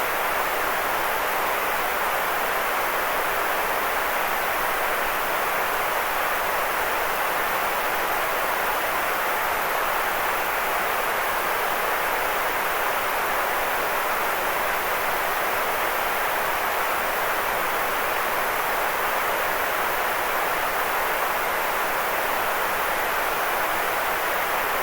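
Steady white noise from a sleep-aid recording: an even, unchanging hiss, strongest in the middle range with little bass.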